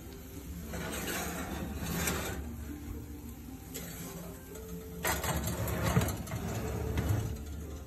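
Cast iron skillet scraping and clanking on a wire oven rack as it is gripped and shifted with an oven mitt, in two bouts about a second and five seconds in, over a steady low hum.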